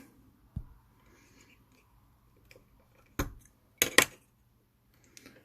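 A few sharp clicks and taps from a small circuit board being handled and plugged into the test rig: a faint one about half a second in, another just after three seconds, and the loudest, a quick pair, around four seconds.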